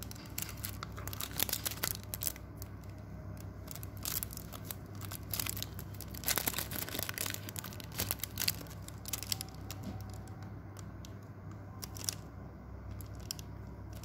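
Irregular crackling and rustling, a scatter of sharp clicks over a faint steady low hum.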